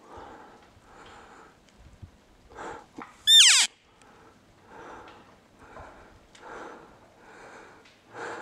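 A short, loud, high-pitched elk call, a whistle with overtones that slides down in pitch, about three seconds in. It sits over soft, regular puffs of noise.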